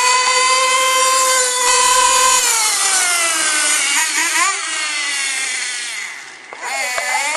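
Carson nitro RC off-road car's small two-stroke glow engine running at high revs, a high steady whine that falls in pitch about two and a half seconds in, then wavers up and down as the throttle changes. It drops and fades about six seconds in, then picks up again near the end.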